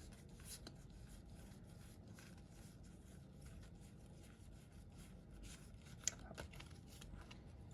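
Faint rustling and sliding of trading cards being flipped through by hand, with a small click about six seconds in.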